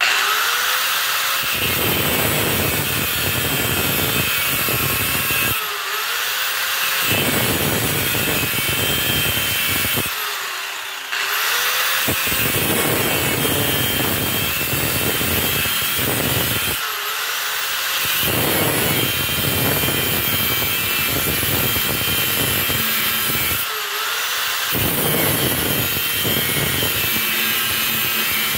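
Angle grinder disc cutting into the steel of a railroad spike, grinding the notches of a knife handle. The grinding is loud and continuous, broken four times by short pauses where the motor's whine dips and rises again.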